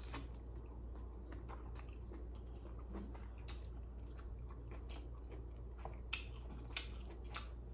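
A person chewing a mouthful of seafood boil, crab meat in sauce, with scattered short mouth clicks over a steady low hum.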